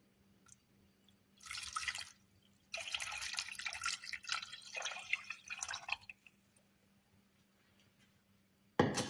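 Water poured into a saucepan in two goes: a short splash, then a longer pour of about three seconds. A sharp knock comes near the end.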